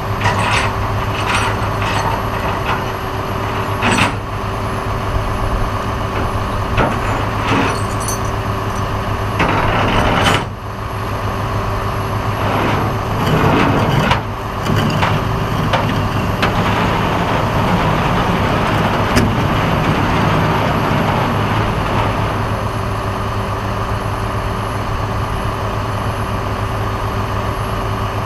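Rollback tow truck's engine running steadily at idle, a constant low drone with a fixed hum. A few light clicks and rattles come in the first seconds, with louder, noisier stretches about ten and fourteen seconds in.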